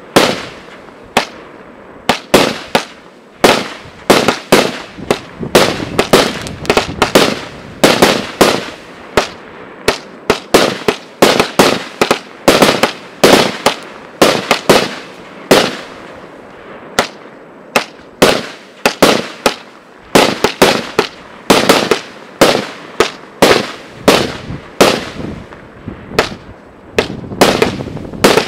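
HPC 4 compact fireworks cake firing in a rapid string of bangs, about two a second, as its shells launch and burst one after another. Each bang trails off briefly, and the volley has a few short lulls.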